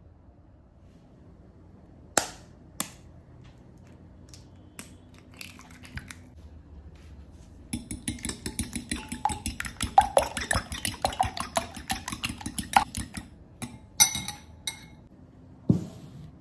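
Fork whisking beaten eggs in a glass bowl: about six seconds of rapid metal-on-glass clinking. Two sharp knocks come about two seconds in, and a few more knocks near the end.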